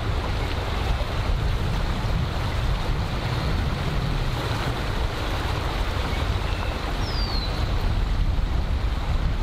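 Steady wind buffeting the microphone, a rumbling rush heaviest in the low end, with one short falling chirp about seven seconds in.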